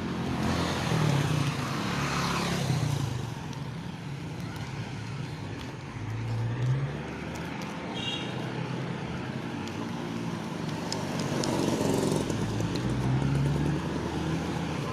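Road traffic: motor vehicles passing close by, one a couple of seconds in and another around twelve seconds in, their engine notes rising and falling as they go by.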